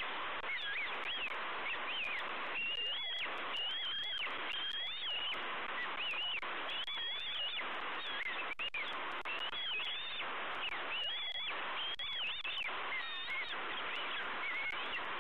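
Bald eaglet on the nest giving repeated high, thin calls that rise and fall, about one a second, over a steady background hiss. These are food-begging calls to its parent.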